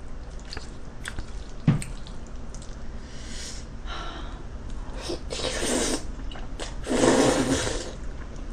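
Jjajangmyeon noodles being slurped up from a bowl with chopsticks: three long slurps, the last two the loudest, after a sharp knock about two seconds in.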